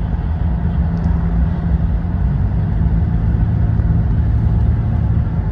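Steady road and engine noise inside a car cruising at highway speed: a constant low hum with tyre rumble.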